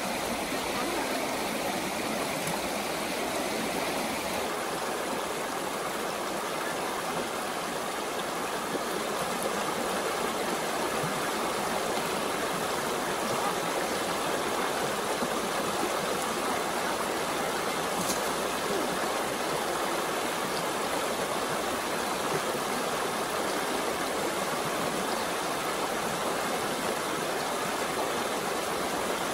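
Shallow river rushing over rocks in whitewater rapids: a steady, even rush of water.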